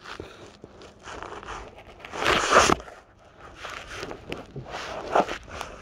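Irregular rustling and scraping handling noise on a handheld phone's microphone, loudest in a burst a little over two seconds in, with smaller bursts later on.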